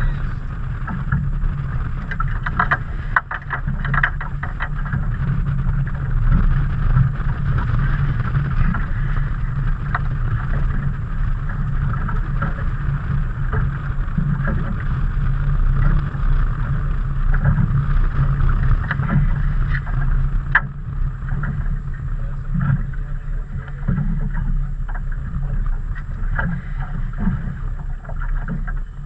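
Water slapping and splashing against the hull of a small fiberglass fishing boat on choppy water, over a steady low rumble of wind on the microphone, with a few short knocks.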